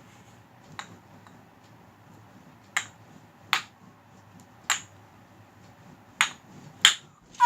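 Wooden kendama being played: the ball clacks against the cups and stick in short, sharp knocks at irregular intervals. There is one faint knock about a second in and five louder ones later.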